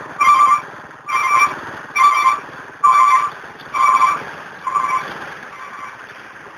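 An electronic beeper sounding a steady series of beeps, a little under one a second, growing fainter and stopping about six seconds in, over a steady engine and traffic rumble.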